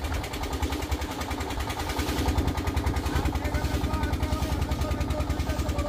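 Engine of a wooden river boat running underway, a steady, rapid, even chugging.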